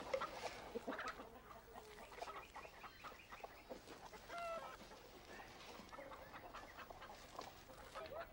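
Domestic chickens clucking: a scatter of short calls from several birds, with one longer, louder call about four and a half seconds in.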